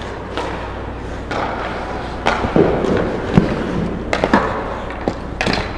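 Ice hockey play at the net: skate blades scraping on the ice and sticks and puck clacking, with sharp knocks about two seconds in, near three and a half seconds, and twice a little past four seconds, over a steady low hum.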